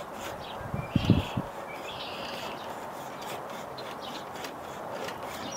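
Hand pruning saw cutting through a small tree trunk, with birds chirping around it. A few dull knocks come about a second in.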